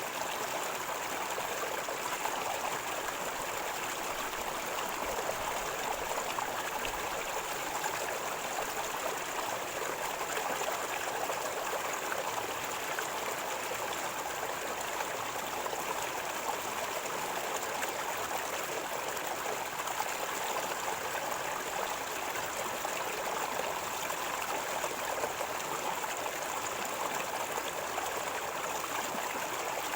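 River water flowing and gurgling in a steady, unbroken stream.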